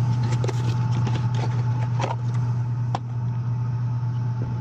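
A steady low machinery hum with a faint steady whine above it, and scattered light clicks and knocks of parts and tools being handled in an HVAC unit's electrical panel.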